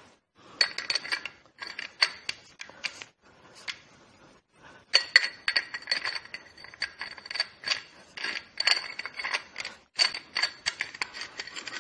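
Steel planetary gear set of a Nissan RE4R01B automatic transmission being turned by hand as it is meshed into its internal gear: quick runs of metal clicks and clinks with a light ringing tone. There is a quieter lull about a third of the way in.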